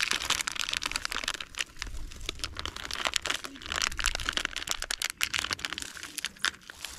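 Continuous crinkling and rustling of some dry material being handled or crushed, made of many small, quick crackles.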